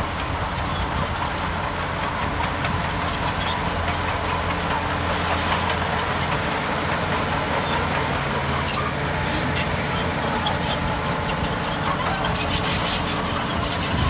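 Shantui DH17B2 bulldozer working: its diesel engine runs steadily while metal squeals and clatters, with bouts of sharper clatter about five seconds in and again near the end.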